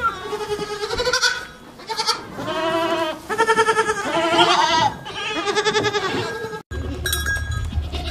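A herd of goats bleating, many overlapping calls with a quavering pitch. Near the end, after a sudden cut, the calls give way to a low steady rumble with clinking bells.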